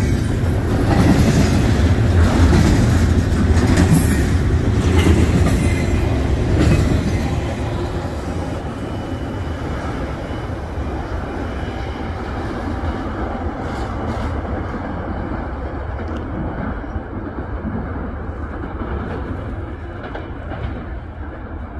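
The rear well cars of a doublestack container freight train roll past close by, with wheels rumbling and clicking on the rails. After about seven seconds the sound drops and fades to a softer rumble as the train draws away.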